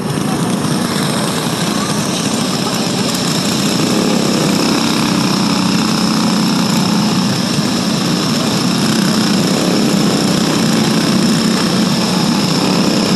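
Several racing go-kart engines running steadily together, a rough mechanical drone.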